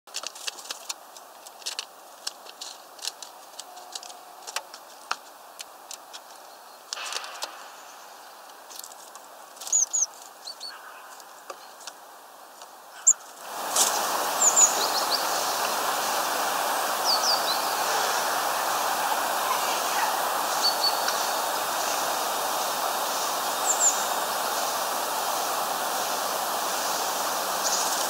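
Small birds giving short, high chirps, with scattered sharp clicks and taps in the first half. About halfway through, a steady hiss comes up suddenly and carries on under the chirps.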